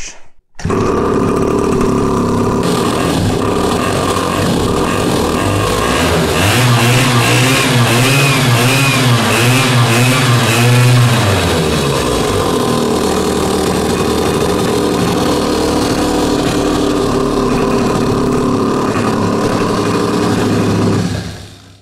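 Pocket bike's small engine starting up about half a second in and running, its pitch wavering unevenly for several seconds in the middle before settling, then cutting out just before the end. It is running on a newly fitted smaller carburetor and runs poorly on it: it dies when given throttle.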